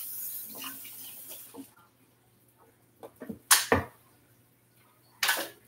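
Kitchen sink tap running, with a steady hiss that stops about two seconds in as it is turned off. Then near quiet broken by a few sharp knocks, the loudest about three and a half seconds in and another just before the end.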